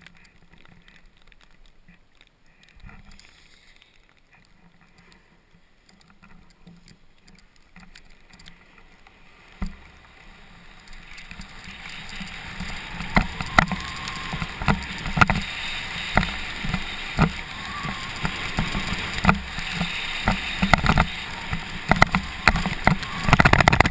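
Snowboard riding down a snowy run, heard from a helmet camera: faint at first, then from about ten seconds in the board scrapes loudly over the snow with many sharp knocks and thuds as it rides over bumps.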